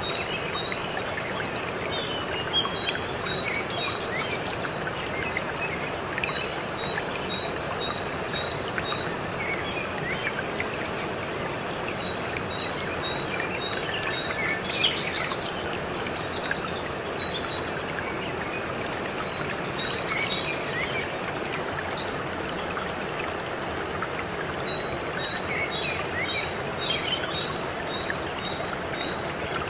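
Steady rush of falling water with birds chirping over it. One bird repeats runs of short high notes, about three or four a second, several times, with other chirps and short trills in between.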